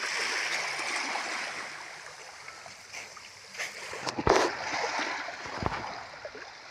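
Sea water splashing and lapping close to the microphone, strongest in the first couple of seconds. A sharp knock about four seconds in is the loudest sound, with a softer one a second and a half later.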